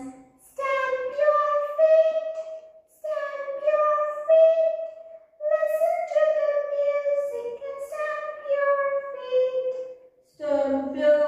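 A single high voice singing a slow song without accompaniment, holding long notes in several phrases with short pauses between them.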